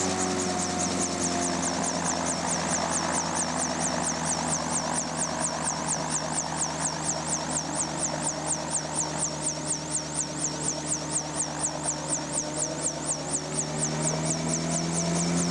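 Homemade helicopter's Subaru engine running with the rotor beating about four times a second. The engine note drops about a second in, holds lower, and climbs again near the end, as it is throttled back and then up.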